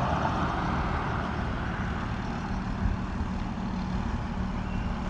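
Steady low mechanical rumble of running machinery, with a faint steady hum.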